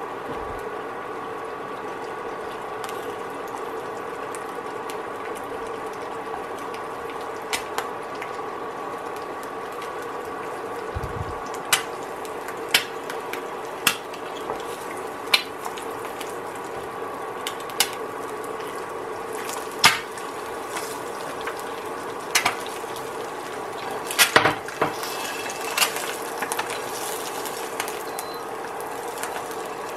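An egg frying in a non-stick aluminium frying pan: a steady sizzle with a steady hum under it, and scattered sharp pops and clicks that start a few seconds in, come most often in the middle and latter part, and are loudest in a quick cluster near the end.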